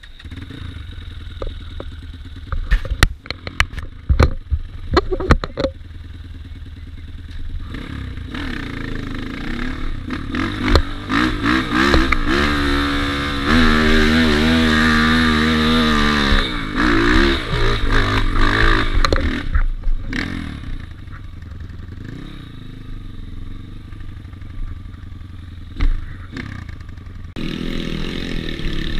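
Dirt bike engine revving under load on a trail climb, with several sharp knocks and clatters in the first few seconds. Near the middle the revs climb to a loud high run and then fall back to lower, uneven running.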